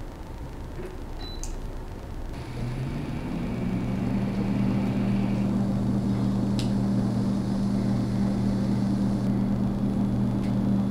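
A steady low electric hum, like a fan or motor, comes up about two and a half seconds in, its pitch rising briefly as it gets up to speed before it holds steady. A few sharp clicks sound over it from the spot-welding work on the cell pack.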